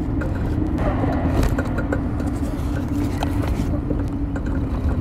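Steady low rumble of a bicycle ride heard through a handlebar-mounted phone, with road and wind noise, a steady hum and scattered small rattles, amid street traffic.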